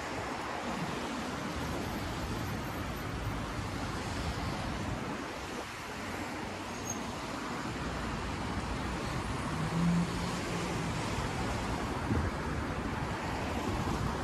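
Street traffic on a wet avenue: a steady hiss of tyres on wet asphalt, swelling as cars drive past. A brief low engine hum about ten seconds in, and a single thump about two seconds later.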